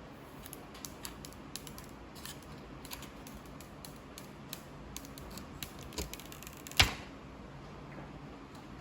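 Irregular light taps and clicks from a phone being handled by hand, with one sharper, louder click about seven seconds in.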